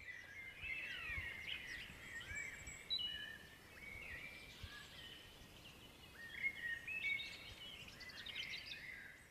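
Several songbirds singing together in woodland, a chorus of many overlapping short whistles and chirps, some gliding up or down in pitch.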